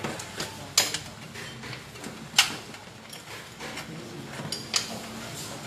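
Tools and parts being handled on a workbench: a few separate sharp clicks and knocks, the loudest about two and a half seconds in.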